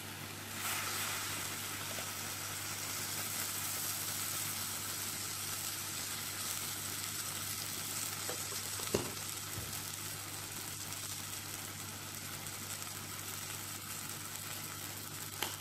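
Chopped onion and tomato frying in a clay pot, a steady sizzle, with one short knock about nine seconds in.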